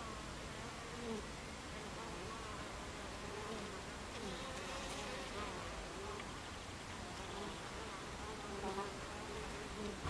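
Buckfast honey bees buzzing as they fly around the hive entrance. Their buzzing tones waver up and down in pitch and keep overlapping.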